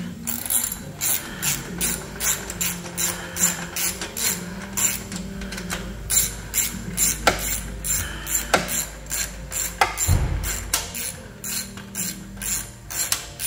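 Hand ratchet wrench clicking in a long run of quick, even strokes, about three clicks a second, as a nut on an exhaust band clamp is turned.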